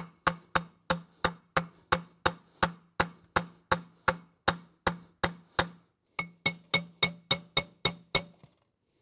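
A hammer tapping steadily on a cast concrete column base, about three taps a second, each with a short ringing tone. After a brief pause a little before six seconds comes a quicker run of taps. The base is being knocked down level into its fresh mortar bed.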